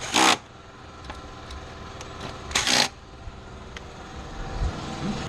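Two short sprays of a dressing onto the engine bay's black plastic parts, each under half a second, the second about two and a half seconds after the first.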